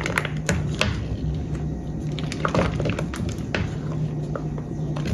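A stirring utensil scraping and tapping against a saucepan while thick, hot brigadeiro mixture is stirred to melt white chocolate into it: irregular light clicks, over a steady low hum.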